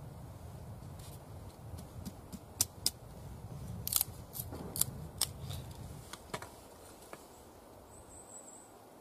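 Fallkniven Idun fixed-blade knife shaving curls down a wooden stick to make a feather stick: scraping strokes with several sharp clicks, dying down after about six seconds.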